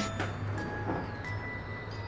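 Music of bell-like chime notes, several struck one after another and each left ringing.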